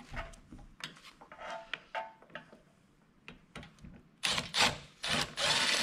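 Light clicks and taps of parts being handled, then a cordless electric ratchet with an 8 mm socket running in two short bursts about four seconds in, backing out the screws that hold the air filter assembly of a 168F single-cylinder diesel engine.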